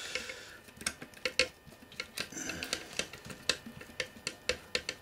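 Hand tools clicking and clinking against metal in a string of irregular light clicks, a few each second, as a connector is being undone on a metal equipment housing.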